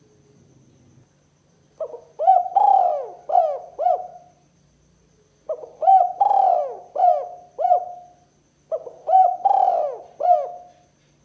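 Spotted dove cooing: three phrases of several short rise-and-fall coos each, a second or so apart.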